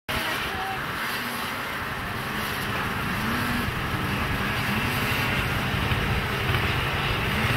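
A pack of racing snowmobiles running hard around a snocross track. Several engines overlap, their notes rising and falling again and again as the riders throttle over the jumps. The sound cuts in abruptly at the start.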